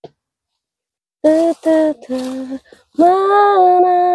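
A woman singing a slow Indonesian song unaccompanied. It begins about a second in with a few short notes, then one long held note that steps down in pitch.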